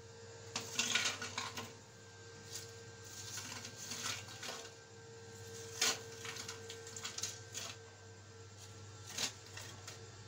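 Crisp fried papri crackers clattering and rustling as they slide out of a wire-mesh strainer onto a plate, in irregular dry crackles with a few sharper clicks, over a faint steady hum.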